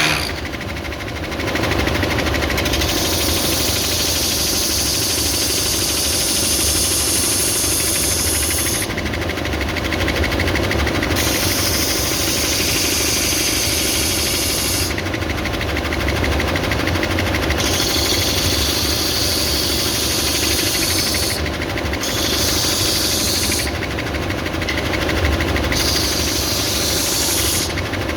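Belt sander running with a steady hum, with a hiss of wood being sanded against the moving belt that comes and goes in five or six spells of a few seconds each.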